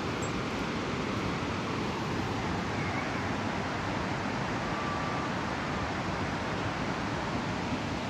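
Steady outdoor background noise, an even rushing hiss and rumble with no distinct events, with a faint short high tone about five seconds in.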